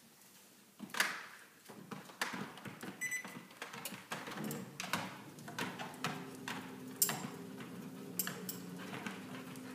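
A pit bull's claws and feet clicking and knocking on a NordicTrack Summit 4500 treadmill deck as she steps on. From about halfway through, the treadmill's motor hums steadily while she walks on the moving belt, her claws ticking on it.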